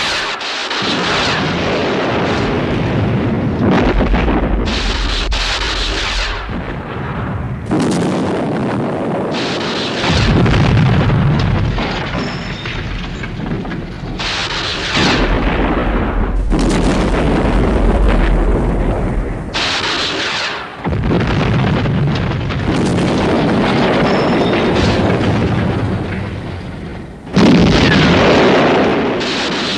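Action-scene sound effects: a run of explosions and heavy rumbling blasts, loud, in blocks that cut abruptly from one to the next.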